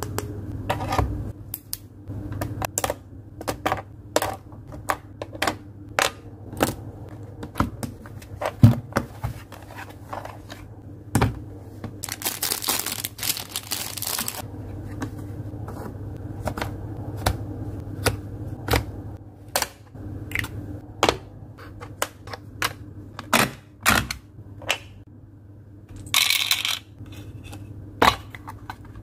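Plastic stationery (a ruler, markers, erasers) being handled and set into a hard plastic pencil box: a string of sharp clicks and taps, with rustling about halfway through and again near the end.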